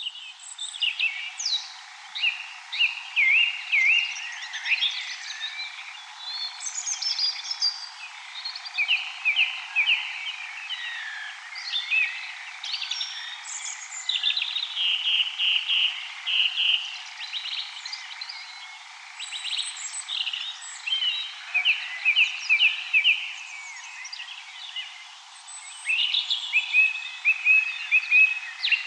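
Dawn chorus: many birds singing over one another in quick, repeated phrases, with nightjars churring among them.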